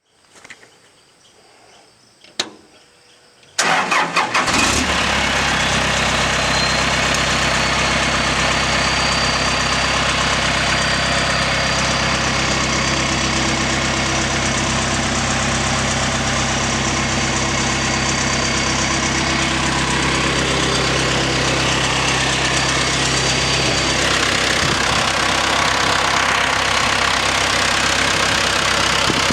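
A single click, then about three and a half seconds in the Vermeer BC1500XL wood chipper's John Deere 4045 diesel engine cranks briefly, starts and runs steadily. Its note changes slightly a few seconds before the end.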